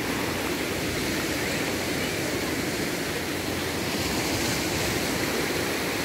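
Small waves washing up and foaming over a sandy shore: a steady rush of surf.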